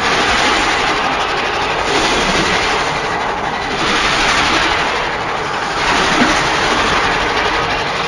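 Custom Mothra Leo creature sound effect: a loud, rushing, noise-like sound that swells and eases roughly every two seconds.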